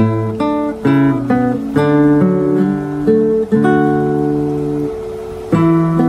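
Background music: an acoustic guitar playing plucked chords that ring out, with a new chord about every second.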